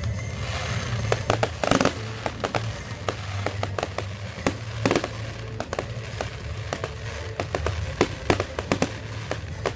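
Fireworks going off: a quick, uneven string of sharp bangs and crackles, with a few louder reports, over music playing underneath.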